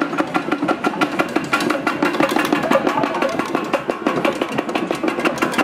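Drum ensemble playing a fast, dense beat of many quick strikes without pause.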